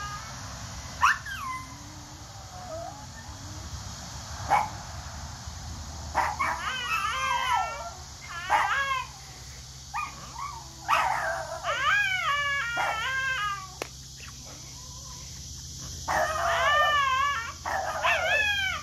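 Small dog howling and whining at a new cat in long, wavering cries that rise and fall, in several bouts, with a couple of short sharp yelps in the first few seconds.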